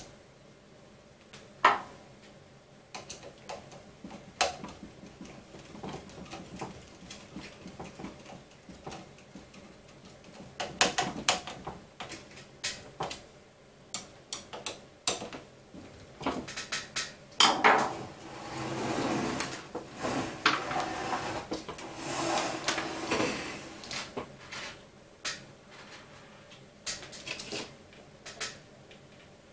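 Scattered clicks, taps and knocks of small metal and plastic 3D-printer parts being handled and fitted by hand. The sounds come thicker and scrape and rustle through the middle of the stretch.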